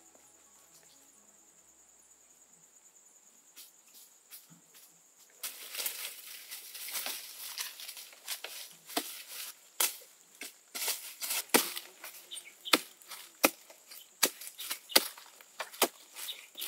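Dry leaf litter and twigs rustling and crackling underfoot and under hand, with many sharp irregular cracks, starting about five seconds in. Before that there is only a faint steady insect buzz.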